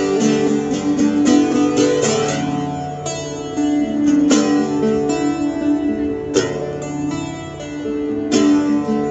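Instrumental interlude of a live band: strummed guitar chords with sustained tones underneath, the chords changing about every two seconds, no voice.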